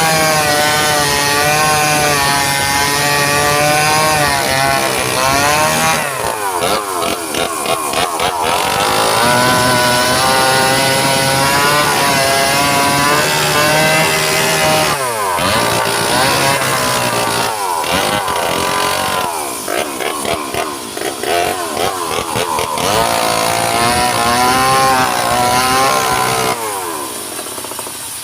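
Engine-driven sawmill saw running hard while cutting wood. The engine's pitch sags under load and recovers several times, then drops off a little before the end.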